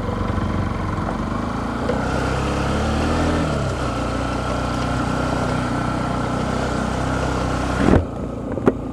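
Motorcycle engine running steadily while riding, with wind rushing over the microphone. About eight seconds in the wind rush cuts off suddenly with a thump, leaving the engine and a sharp click.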